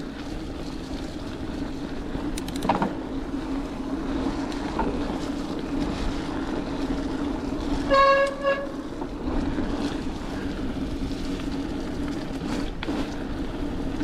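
A bike riding along a forest track: steady rolling and rushing noise, with a few light knocks. About eight seconds in comes a brief high squeal, twice in quick succession.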